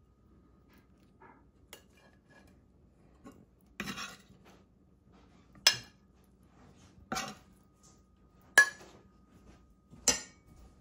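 China plates and metal cutlery clinking and knocking together as breakfast is dished up: about six separate clinks a second or two apart, the sharpest near the middle and about two-thirds of the way through.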